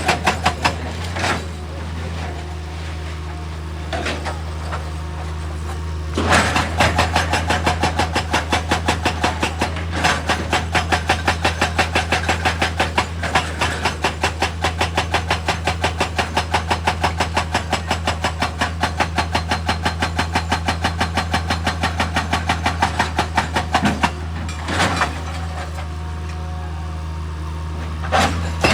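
Heavy machine's diesel engine running steadily, with a fast, even hammering of about four knocks a second from about six seconds in until near the end, and a few single knocks before and after.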